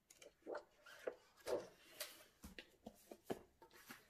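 Pages of a coloring book being flipped by hand: a quick, irregular run of faint paper rustles and flaps, with light handling knocks as the book is closed and held.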